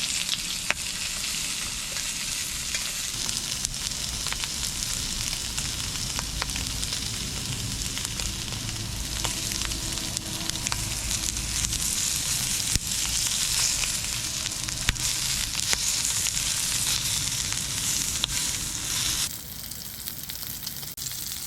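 Pork tails sizzling as they fry, a steady hiss with scattered pops of spitting fat. The sizzle turns quieter about two seconds before the end.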